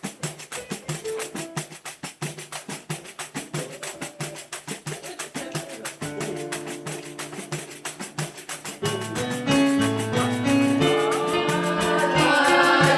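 Youth music ensemble playing an instrumental introduction. A fast, steady percussion rhythm runs throughout; sustained pitched notes join about six seconds in, and the whole group comes in louder about nine seconds in.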